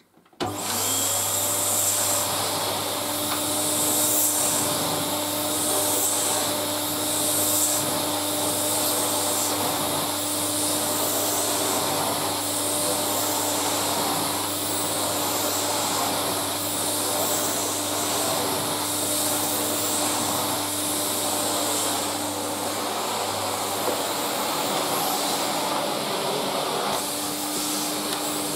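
1987 Electrolux Z2020 cylinder vacuum cleaner starting up at its maximum power setting and running steadily. Its sound rises and falls about once a second as the floor nozzle is pushed back and forth over carpet.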